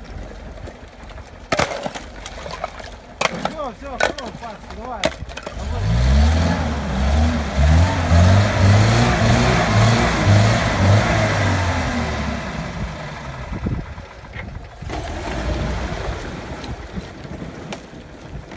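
A few sharp knocks of ice slabs, then about six seconds in the UAZ-469's engine revs hard in repeated pulses as its wheels spin in icy water and broken ice, easing off after several seconds: the stuck jeep trying to climb out of the hole in the ice.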